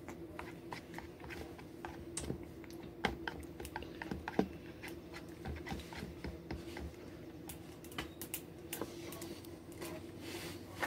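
Light scattered clicks and taps of small hard objects being handled, with a louder knock about three seconds in and another near four and a half seconds, over a steady faint hum.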